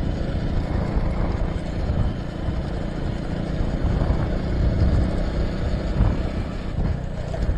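Steady noise of a motorcycle riding along a road.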